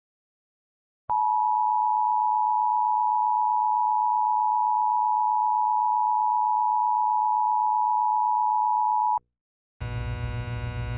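Emergency Alert System attention signal: a steady two-tone alarm (853 and 960 Hz) starting about a second in, holding for about eight seconds, then cutting off abruptly. It is the tone that introduces an emergency alert broadcast. Near the end a low buzzing hum starts.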